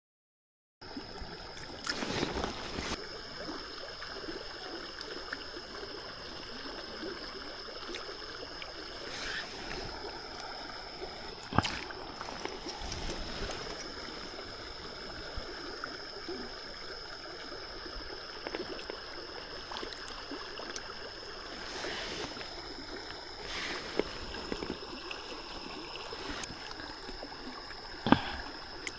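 River water running steadily, with a steady high tone above it and a few scattered sharp clicks and knocks.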